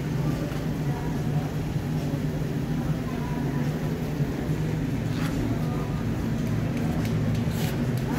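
Steady low mechanical hum holding several constant pitches, with faint voices and a few light clicks a few seconds in.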